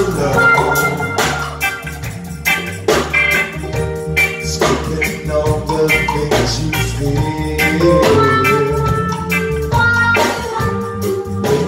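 A live band playing a song: drum kit and hand percussion keeping a steady beat under electric guitars, bass and keyboard.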